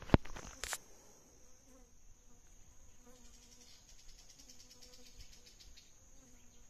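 Two or three sharp knocks right at the start, then a steady high-pitched insect chorus with fast pulsing chirps, crickets or cicadas.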